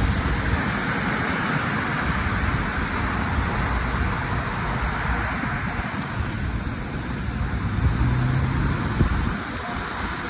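Steady road traffic noise, with a low engine hum swelling briefly about eight seconds in.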